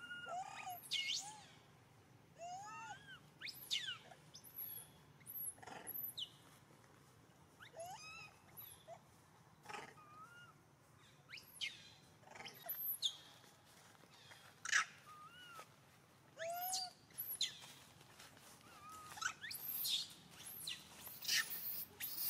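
Macaques calling: scattered short arching coos and squeaks, with shrill high squeals mixed in. The calls come irregularly and get louder and more frequent near the end.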